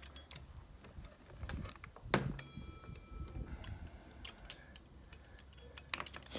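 Steel gear shafts and shift forks of a Honda B-series five-speed transmission clicking and clinking against each other and the aluminium case as they are worked into place by hand. One heavier knock comes about two seconds in, followed by a brief metallic ring, with a steady low hum underneath.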